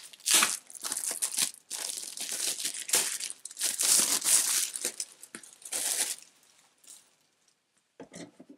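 Packaging crinkling and tearing in repeated rustling bursts as it is pulled off and handled, dying away about six seconds in, with a few short clicks near the end.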